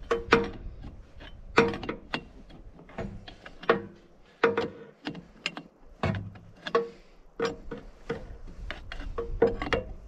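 A ratchet wrench clicking and metal tools clinking against the steel loader frame of a Gehl 4400 skid steer as a bolt is worked in fitting the lift cylinder. The strikes come irregularly, some in quick little runs, several ringing briefly.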